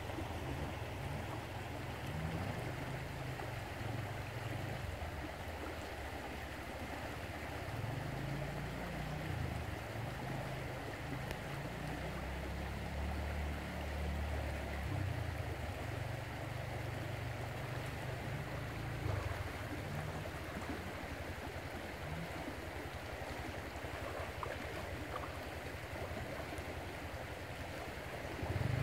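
Shallow creek water running and rippling over a riffle, with a low uneven rumble underneath.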